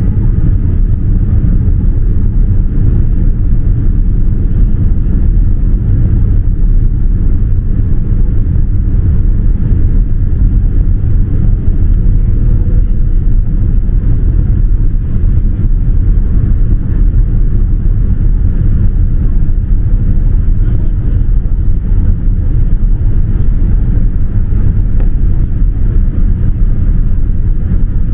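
Steady low rumble of engine and airflow noise inside a Boeing 787-9's cabin during the descent.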